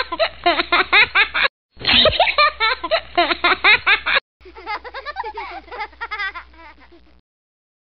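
A small child laughing and giggling in quick, repeated peals, in three stretches broken by short gaps. The last stretch is softer, and the laughter stops about seven seconds in.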